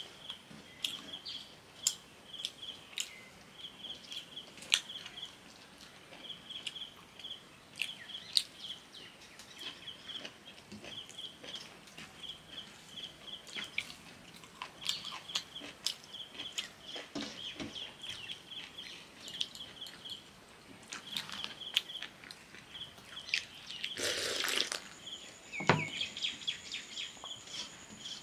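Hand-eating sounds: fingers mixing and scooping watery fermented rice on a steel plate, with chewing and lip smacks as small sharp clicks. Behind them a bird chirps in short, high, repeated notes, and about 24 s in there is a brief louder rustle.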